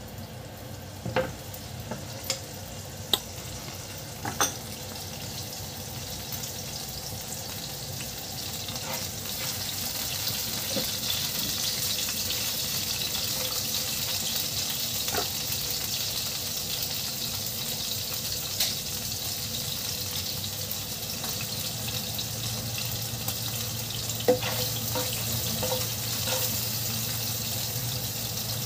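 Ginger strips sizzling in hot oil in a non-stick frying pan, stirred with a spatula. The sizzle grows louder over the first ten seconds and then holds steady, with a few sharp clicks and pops, most of them in the first few seconds.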